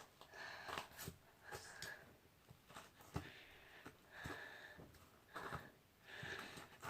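Faint, wet squishing with scattered small clicks and pops as slime is worked by hand.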